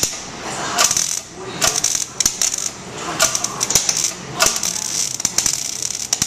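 MIG welder crackling as it welds a hole in a steel diesel fuel tank, in short stop-start bursts.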